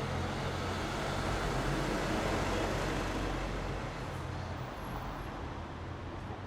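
City street traffic, with a motor vehicle's engine hum passing close: the sound swells to its loudest about two seconds in and eases off, and the low hum stops after about four and a half seconds.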